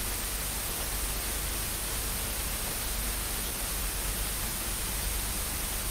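Steady hiss of television-style static.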